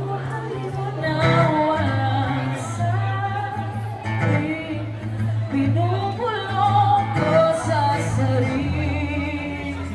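An acoustic-style song: a singer's voice over guitar, with low bass notes held a second or more at a time.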